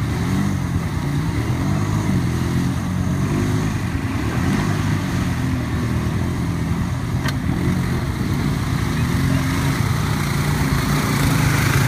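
ATV engines running under load as the quads churn through deep mud, the engine note rising and falling with the throttle.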